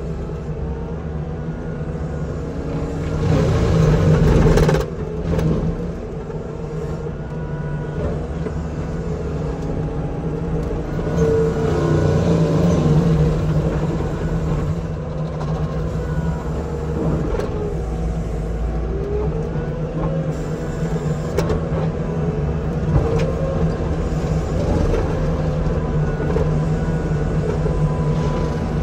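Forestry mulcher working: the carrier's engine drones steadily under load while the spinning mulcher drum grinds cedar logs and brush, with louder grinding surges about three seconds in and again around eleven seconds in.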